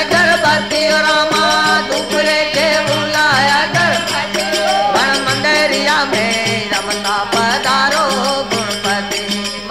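Rajasthani desi bhajan music: a gliding melodic line over a steady drone, with rattling percussion keeping time.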